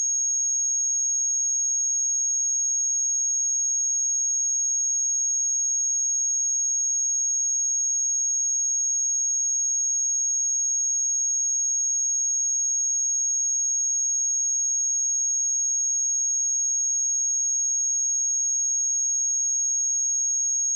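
A pure 6558 Hz sine-wave test tone, a single high-pitched steady whistle held at constant level without any change.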